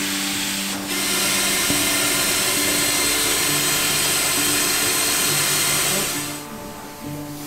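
A machine running with a steady, noisy whir and hiss, like a power tool, over sustained low music notes. The machine sound falls away about six seconds in, leaving the music.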